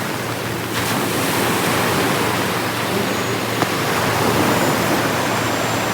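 Steady rushing of surf on a sandy beach, a little louder about a second in.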